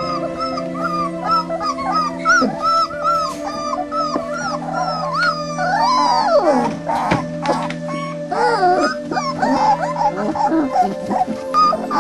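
Four-week-old border collie puppies whining and yelping in a rapid string of short high cries. About six seconds in comes a longer howl that falls in pitch, followed by more overlapping cries. Background music with sustained tones plays underneath.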